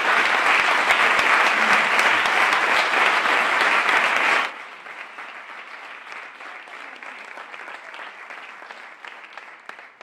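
Audience applauding, a dense clatter of many hands clapping; about four and a half seconds in it drops suddenly to much quieter applause that carries on to the end.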